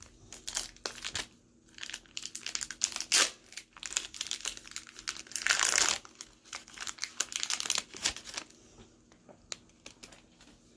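Foil Pokémon booster pack wrapper crinkling and being torn open, with a longer tear about five seconds in.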